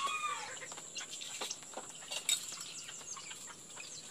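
Backyard chickens, a mother hen and her chicks, feeding on scattered grain: a few short falling calls near the start, then quieter scattered calls.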